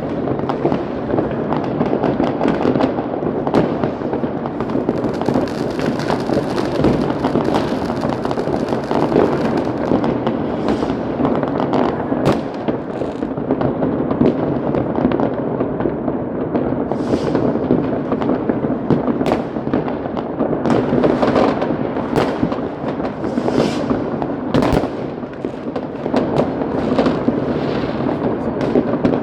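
Many fireworks and firecrackers going off at once: a dense, continuous crackle of bangs, with hissing plumes and a few sharper, louder bangs standing out.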